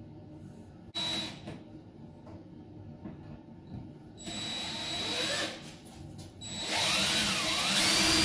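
Cordless drill turning a 7/8-inch hole saw into a steel door frame: a short burst about a second in, a longer run a few seconds later, then steady cutting near the end, the loudest part, its pitch rising and falling as the saw bites into the metal.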